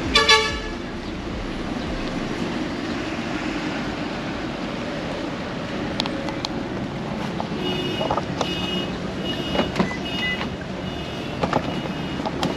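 Steady vehicle engine and traffic noise, with a run of short, repeated high beeps starting about two-thirds of the way through.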